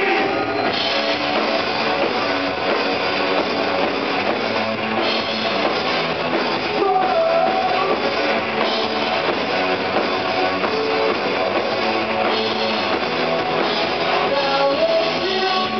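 Live rock band playing through the venue's sound system: electric guitar and drum kit with keyboards, steady and dense throughout.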